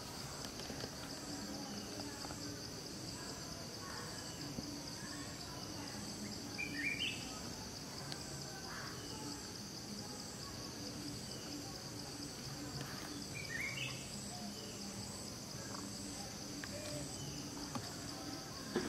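Steady, high-pitched chorus of insects with a fast pulsing texture, joined twice by a short chirping call, about seven and thirteen seconds in.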